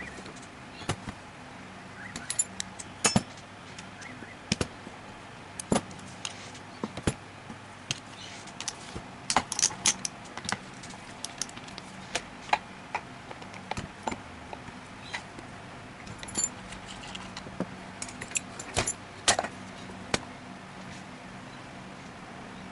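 Small metal tools and parts clinking and tapping at irregular intervals, a few dozen sharp clicks over the stretch, with a faint steady hum underneath.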